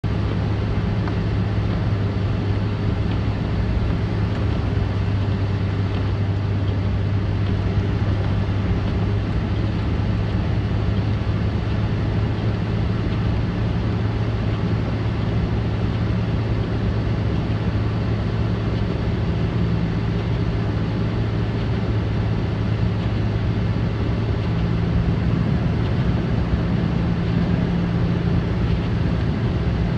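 A snow-plow truck's engine running steadily, with a constant low hum under a steady wash of noise.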